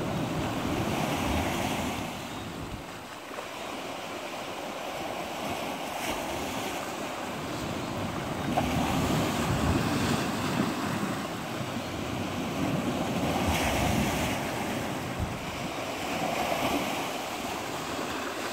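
Sea waves breaking against a rocky shore and washing back, the surf swelling louder and fading in repeated surges.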